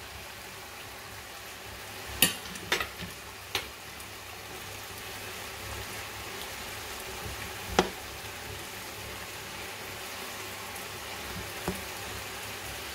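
Minced meat, paprika and onion sizzling steadily in a frying pan over high heat. A few sharp knocks stand out, the loudest about two and eight seconds in.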